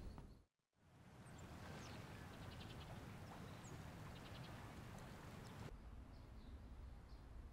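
Faint outdoor ambience with a few short, high bird chirps and quick chirping trills. About two-thirds of the way in it drops to a quieter indoor room tone.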